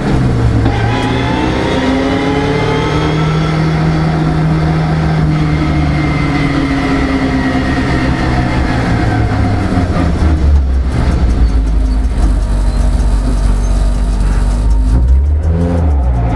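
Car engine heard from inside the cabin while driving, with road noise: the revs drop right at the start, climb and hold for several seconds, then fall away to a low rumble about ten seconds in as the car slows, with a short rise and drop near the end.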